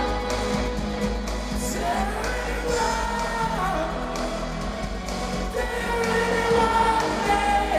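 Live rock band playing with singing, at a steady loud level.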